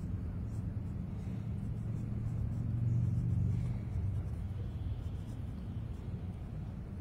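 Low rumble of a motor vehicle, swelling about three seconds in and then fading.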